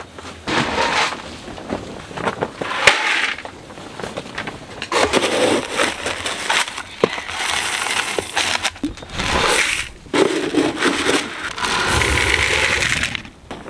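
A plastic scoop digging into a tote of whole grain feed and pouring it into a plastic bucket: a rattling rush of grain, about a second long and repeated several times.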